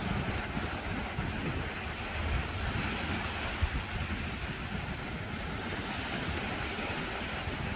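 Small waves washing up a beach, a steady rush of surf, with wind rumbling on the microphone.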